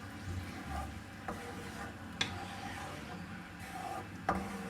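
A spoon stirring sauce in a cooking pan, with a few sharp knocks of the spoon against the pan, the loudest near the end.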